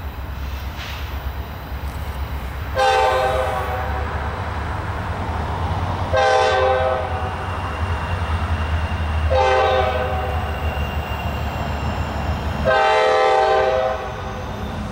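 Air horn of a GE Dash 9-40C diesel locomotive blowing four blasts for a grade crossing, the first and last held longer than the two between. A steady low rumble from the approaching train runs underneath.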